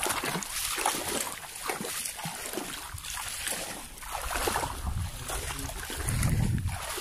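Wet mud and shallow water sloshing and squelching irregularly, as someone moves and digs in a mangrove mud flat, with a low rumble swelling twice near the end.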